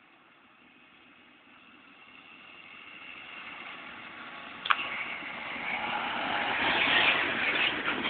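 John Deere tractor towing a loaded bale chaser, drawing nearer and passing close by: the engine and the trailer running on the dirt track grow steadily louder to a peak about seven seconds in. A single sharp knock a little before five seconds in.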